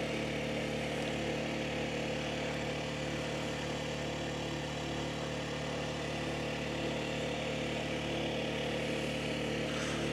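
An engine running steadily at one speed: a constant, even drone with no change in pitch or level.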